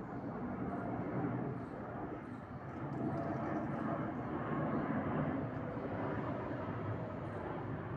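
Airplane engines during take-off: a steady, dense rushing rumble that swells slightly and holds.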